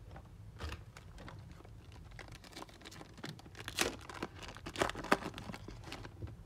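Trading card pack wrapper crinkling and tearing as a pack is opened, with cards rustling in the hands: irregular crackles, a few louder ones in the middle.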